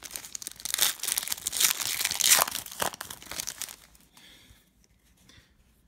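Foil wrapper of a trading card pack crinkling and tearing as it is pulled open, stopping about four seconds in.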